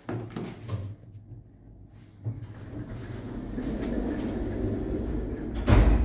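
A 2011 passenger lift working: a few sharp clicks, then a mechanical rumble building from about two and a half seconds in, and a loud thump near the end.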